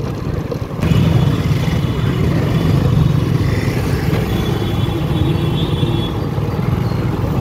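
Riding noise from a motorbike in town traffic: a steady low rumble that grows louder about a second in.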